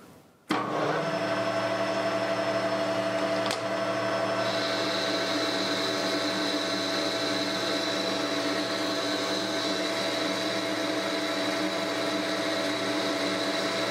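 Metal lathe starting up about half a second in, then running steadily with a hum and whine while a boring bar takes a roughing pass inside a 4140 steel bar. A higher whine joins about four seconds in.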